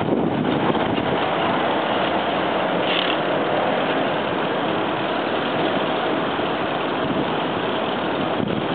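Steady rush of city street traffic and wind on the microphone of a moving bicycle, with a brief higher sound about three seconds in.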